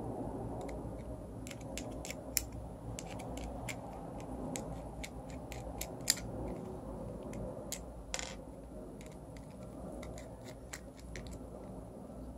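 Small screwdriver backing out small screws from a loudspeaker tweeter housing: irregular faint clicks and scratches of the tip working in the screw heads.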